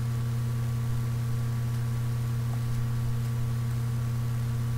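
Steady low electrical hum with an even hiss over it: the background noise of a computer microphone recording with its noise suppression switched off.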